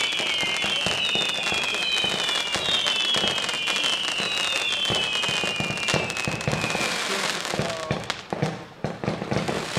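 Fireworks firing: many overlapping whistles, each falling in pitch, over steady crackling and popping. The whistling dies away about seven seconds in, leaving scattered crackles and pops.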